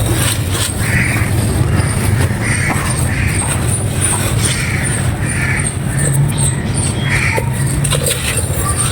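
Dry baked clay crumbling and crunching under hand pressure, with soft crackles over a steady low rumble.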